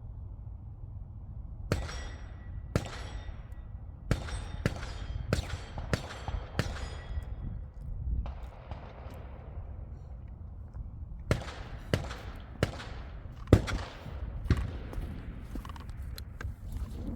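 Gunshots on a shooting range: a string of about eight shots in quick succession, a pause of several seconds, then a second string of about five shots, fired while the shooter moves between targets.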